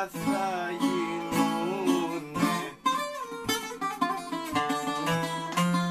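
Greek bouzouki playing a melody of picked notes, some of them sliding in pitch, with a low note held near the end.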